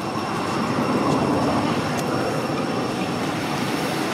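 Steady rumbling background noise with no distinct events, and a faint high steady tone above it.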